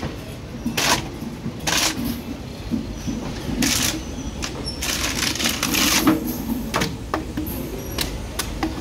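Rattling and clattering of a moving Indian Railways sleeper coach: irregular sharp clacks and short rushes of noise over a low rumble.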